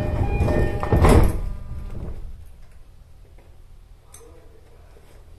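Train's sliding passenger doors closing during a station stop: steady tones at first, then a loud short thud with a hiss about a second in as the doors shut, after which only a low hum remains.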